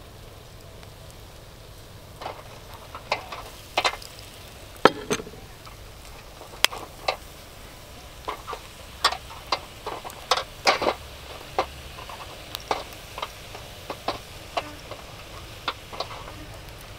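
Irregular sharp clicks and pops from basting and turning octopus skewers on a wire grill over charcoal. They start about two seconds in, come scattered over a faint steady hiss, and thin out near the end.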